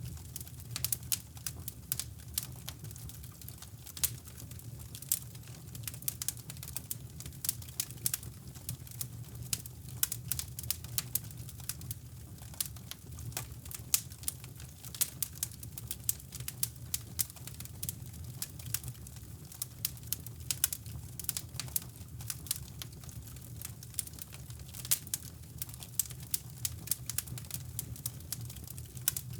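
Wood fire crackling in a fireplace, with many irregular sharp snaps and pops, over a steady low brown-noise rumble.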